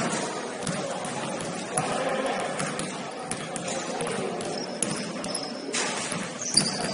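Basketball bouncing on a gym floor during play, with scattered thuds, a few short high squeaks, and voices echoing in the hall.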